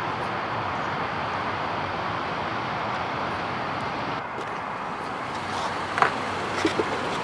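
Steady hiss of road traffic noise, with a sharp click about six seconds in and a few lighter ticks after it.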